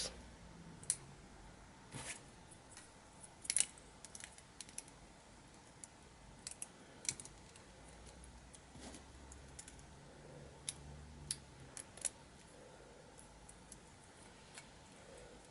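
Plastic Lego pieces being handled and pressed together: faint, scattered clicks and snaps at uneven intervals, a few of them sharper than the rest.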